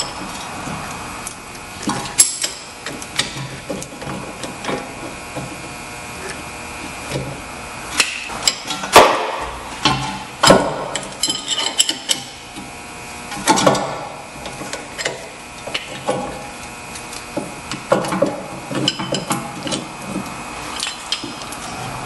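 Metal clicks and clinks of a brake caliper piston tool working against a rusty rear brake caliper as the piston is screwed back into its bore. The clicks come irregularly, the loudest about nine seconds in.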